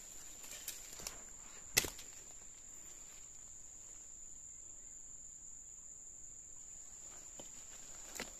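Forest insects droning steadily on one high-pitched note, with a few sharp snaps or clicks; the loudest is about two seconds in, and another comes near the end.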